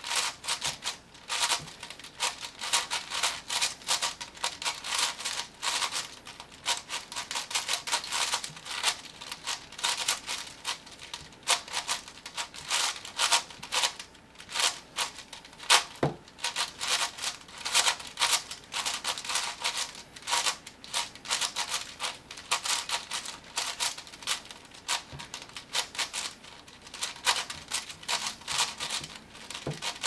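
A plastic 7x7 Rubik's cube being turned rapidly in a speedsolve: a dense run of quick clicking and clacking layer turns, with brief pauses now and then and one sharper snap about halfway through.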